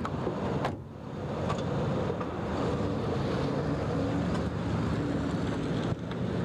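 Steady street noise of a vehicle engine running, with wind on the microphone. A few sharp clicks come in the first two seconds.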